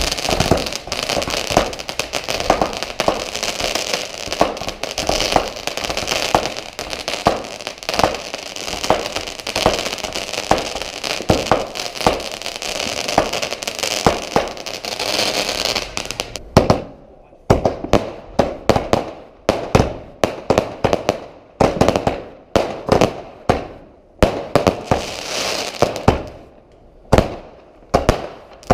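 Fireworks going off: about sixteen seconds of dense, continuous crackling and banging, then separate sharp bangs several a second with short gaps between them.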